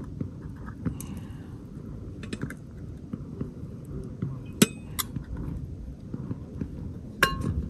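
Metal coffee and tea pots being handled by the fire, giving sharp ringing clinks: two about halfway through and another near the end, over a steady low rumble of wind on the microphone.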